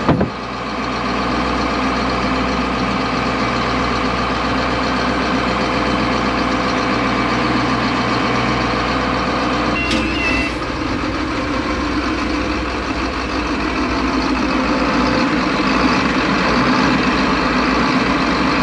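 Inboard marine diesel engine running steadily with the boat under way. A short high beep sounds about ten seconds in.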